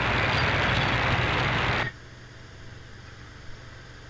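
Shortwave static from an RSPduo SDR receiver tuned to an empty AM channel: a steady hiss of band noise that cuts off abruptly about two seconds in as the scanner moves on, leaving a faint low hum.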